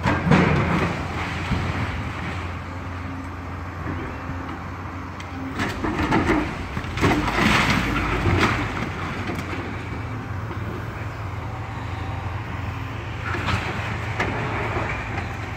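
Komatsu hydraulic excavator's diesel engine running with a steady drone, broken by bursts of crunching and clattering brick as the building is torn down: a sharp crash just after it begins, the loudest stretch from about six to eight and a half seconds in, and a smaller one near the end.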